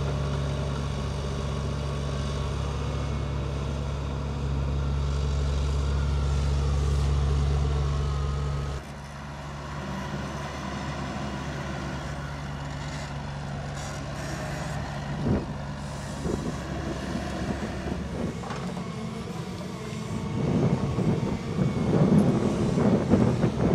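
Caterpillar 312D hydraulic excavator's diesel engine running steadily under load, getting louder about four and a half seconds in. It cuts off abruptly about nine seconds in, leaving a quieter, more distant machine sound with a few knocks. Louder, irregular rumbling follows near the end.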